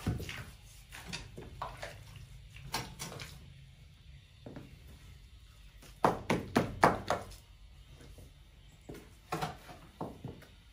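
Scattered knocks and thunks, with a quick run of about five sharp knocks about six seconds in and a few more near the end.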